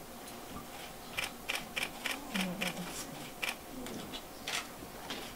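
Camera shutters clicking: about ten sharp clicks in quick, irregular succession, bunched between one and three and a half seconds in, with a last one about a second later.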